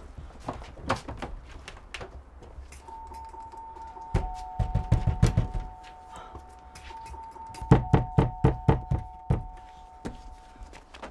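Hand knocking hard and fast on a panelled wooden door, in two runs of knocks: one about four seconds in and a louder one about eight seconds in. A steady two-note high tone holds underneath.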